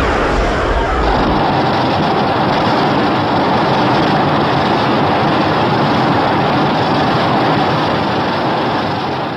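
Godzilla's atomic breath sound effect: a long, steady, dense rushing blast that starts with a brief falling whistle and begins to fade near the end.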